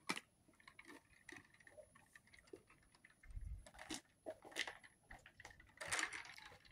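Quiet, scattered light clicks and clinks, with a few short louder rustling noises about four and six seconds in.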